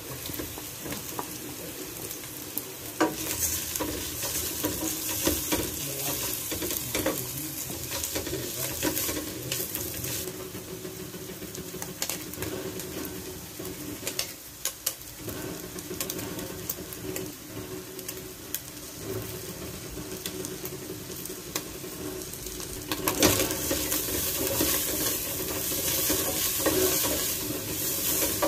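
Shredded chicken sizzling in hot oil with onion and garlic in a stainless steel pot, stirred with a spatula that scrapes and clicks against the metal now and then. The sizzling grows louder about three-quarters of the way through.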